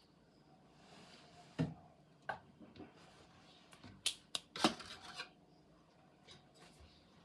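Scattered light clicks, taps and rubbing of hands handling packaging and a model airplane, with a cluster of sharper clicks a little past the middle.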